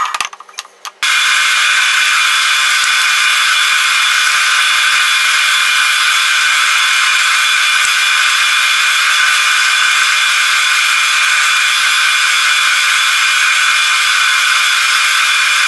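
Benchtop drill press running steadily, its bit spinning free above the wood, a constant whine and hiss. In the first second the sound drops away briefly with a few clicks, then comes back.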